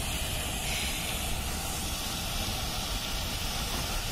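Fountain jets spraying and splashing down onto a lake: a steady hiss, with a low rumble underneath.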